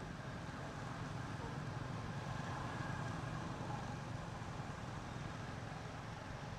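Steady low engine-like rumble with no change in pitch.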